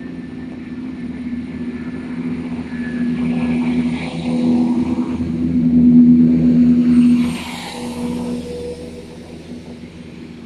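Southern Class 171 Turbostar diesel multiple unit pulling away under power, its underfloor diesel engines running hard as the cars pass. The engine note builds to its loudest about six to seven seconds in, then drops off suddenly as the engine moves away.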